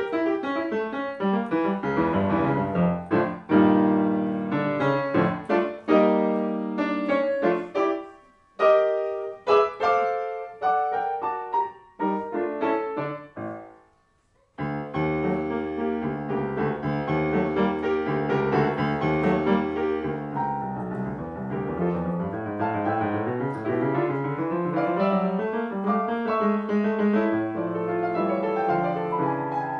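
Solo classical piano music on a concert grand piano. Phrases of separate, accented chords and runs die away to a brief silence about halfway through, then a flowing passage of continuous running notes begins.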